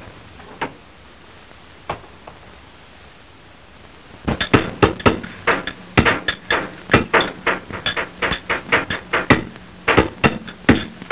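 Rapid hammering on metal: a few scattered knocks, then from about four seconds in a fast, uneven run of sharp ringing blows, several a second.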